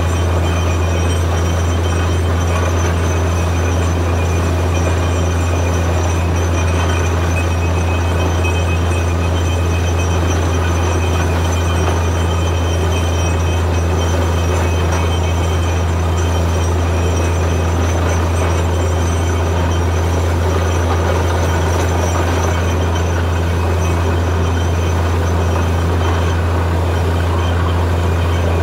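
Truck-mounted borewell drilling rig running steadily while drilling, its engine-driven machinery giving an even, deep hum with a constant rush as mud, water and cuttings are blown out of the borehole.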